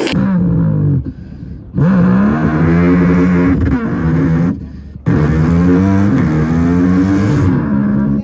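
A man imitating a car exhaust with his voice into a handheld microphone, mimicking a BMW M4. He gives one short rev, then two longer held revs, each swooping up in pitch, wavering, and dropping away, with brief gaps between.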